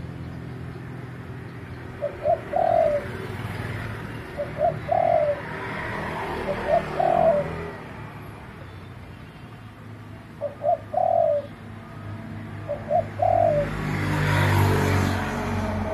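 Spotted dove cooing: five phrases about two seconds apart, each two short notes followed by a longer coo. A broad rushing noise swells near the end.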